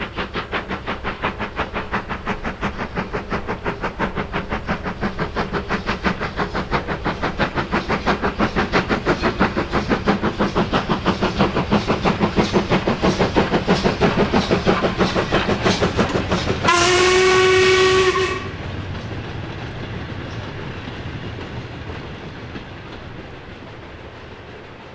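Steam locomotive working hard with a train, its exhaust chuffing in a rapid, even beat that grows louder as it approaches. A single whistle blast of about a second and a half sounds near the end. The chuffing then stops and the rumble of the passing wagons fades away.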